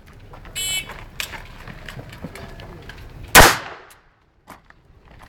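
A single loud pistol shot about three and a half seconds in, with a short ringing tail. It is preceded just under a second in by a brief high electronic beep, typical of a shot timer's start signal, and a few faint clicks.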